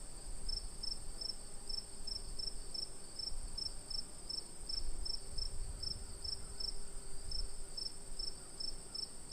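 Crickets chirping at night: one very high, unbroken trill, with another cricket chirping in an even rhythm of about two to three chirps a second. There is a faint low rumble underneath.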